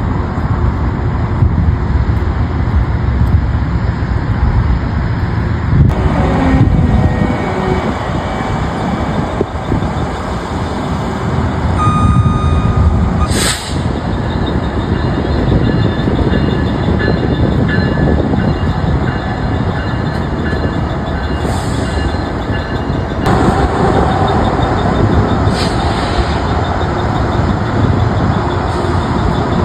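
Commuter train equipment in a rail yard: a steady heavy rumble, with short sharp hisses of air brakes releasing near the middle and twice more later. A brief steady tone sounds just before the first hiss.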